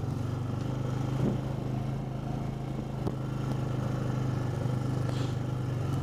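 Engine of an open off-road vehicle running at a steady pace while travelling along a forest trail, with a brief hiss about five seconds in.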